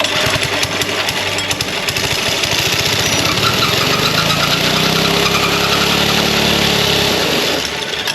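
Go-kart's 3 hp Briggs & Stratton single-cylinder engine running on its own for the first time in about forty years. Rapid firing pulses at first, then it speeds up through the middle and drops back near the end.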